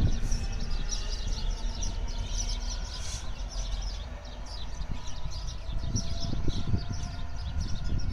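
Birds chirping over the low, fading rumble of a Class 66 diesel freight locomotive running away into the distance.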